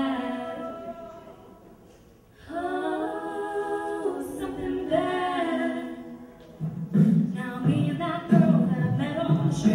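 Mixed-voice a cappella group singing held chords: the chord fades to a near pause about two seconds in, a new chord swells in, and around seven seconds in a pulsing vocal bass and percussion beat comes in under the voices.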